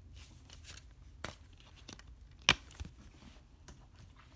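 A Blu-ray disc being pried off the plastic hub of a steelbook case: faint scraping and small clicks, with one loud click about two and a half seconds in.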